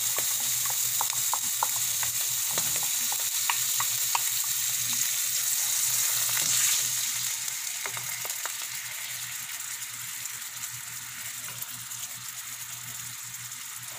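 Coconut milk sizzling and crackling in a hot frying pan over sautéed tuna, with a wooden spatula stirring. The sizzle gradually dies down over the second half.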